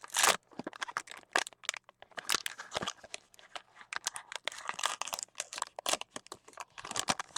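Plastic wrapping of a baseball card box or pack crinkling and tearing as it is opened and handled, in a run of irregular crackles with a louder rip near the start.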